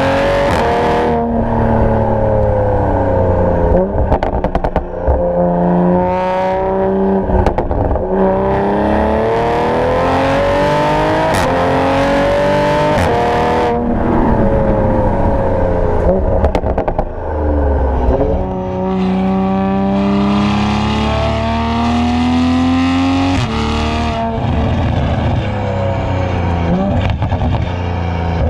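Tuned Toyota A90 Supra's turbocharged B58 inline-six, with a catless downpipe and an aftermarket cat-back exhaust, revving repeatedly. The pitch climbs and falls several times, with sharp drops between pulls.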